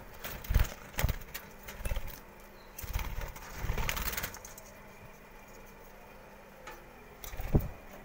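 A string of dull knocks and rustles of handling as a phone is moved in and around a clay budgie nest pot. The loudest knock comes near the end.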